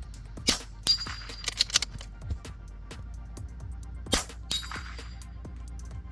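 Rimfire rifle shots at steel targets: two sharp reports, each followed a moment later by the metallic ring of the bullet striking steel, with a few quick lighter clinks after the first.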